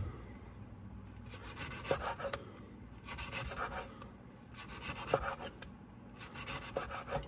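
Chef's knife slicing a lemon into rounds on a wooden cutting board: four slices, each a run of short sawing strokes through the rind and flesh, several ending in a tap of the blade on the board.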